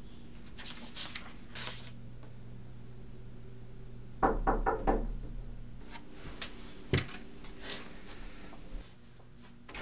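Book pages rustling as they are turned, then a quick run of about five knocks on a wooden room door, and a single thump a few seconds later.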